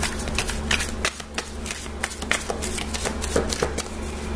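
Tarot deck being shuffled by hand: an irregular run of many quick card clicks and slaps.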